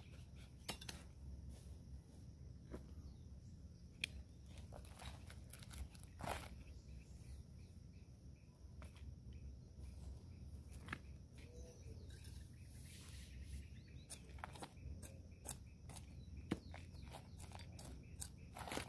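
Soft, scattered scrapes and crunches of a small garden trowel digging and scooping potting soil into a plastic plant pot, over a low steady rumble.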